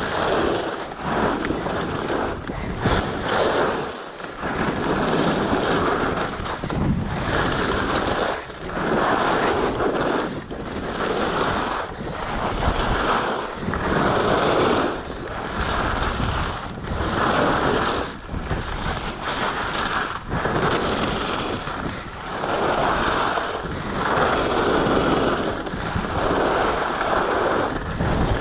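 Skis scraping over packed groomed snow at speed, with wind rushing on the chest-mounted action camera's microphone. The noise swells and drops with each turn, about one every second and a half.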